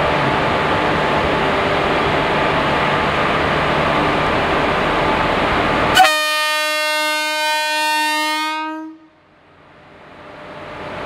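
Electric locomotive running with a steady hum and rumble as it pulls a passenger train out, then its horn sounds one long steady blast about six seconds in, lasting about three seconds. The sound drops away suddenly after the horn and slowly returns.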